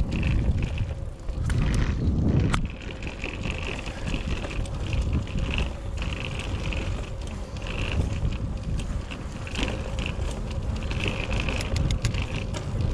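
Bicycle riding over a rough concrete-slab and sand path, with steady wind rush on the camera's microphone and occasional sharp clatters from bumps in the surface.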